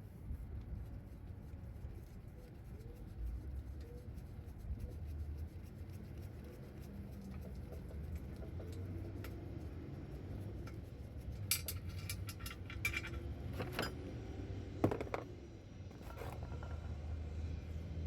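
Steel transmission parts and tools clinking and knocking together as a manual transmission's shaft and bearings are fitted, with scattered light clicks and a cluster of sharper clinks about two-thirds of the way through.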